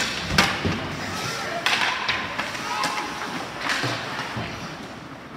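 Ice hockey play in a rink: several sharp knocks of sticks, puck and bodies against the boards, spread over a few seconds, over the scrape of skates on the ice.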